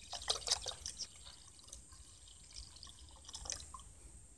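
Kerosene being poured from a plastic bottle into an aluminium pot, glugging and splashing. The splashes come thick in the first second, then thin to a quieter, uneven trickle with a few more splashes near the end.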